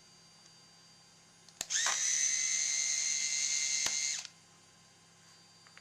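A small electric screwdriver starts with a click, its whine climbing quickly to a steady pitch, runs for about two and a half seconds and stops abruptly, driving a keyboard retaining screw back into a netbook's base.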